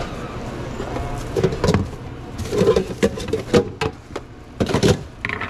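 Hands working at a sandwich counter: a quick run of clicks, knocks and rustles, like plastic containers, lids and wrapping paper being handled.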